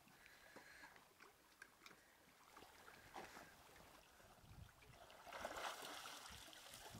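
Faint lapping and splashing of lake water around a swimming dog, then about five seconds in a louder burst of splashing and pouring water as the wet yellow Labrador climbs out onto the wooden dock.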